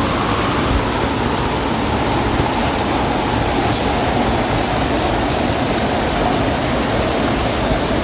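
Steady, loud rush of water from a small waterfall spilling into a shallow rock pool, with splashing as a person ducks and scoops water in the pool.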